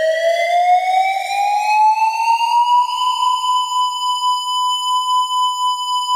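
Synthesized electronic tornado siren tone, made to imitate an ATI siren, winding up in pitch over the first three seconds and then holding a steady wail, with a heavy echo on it.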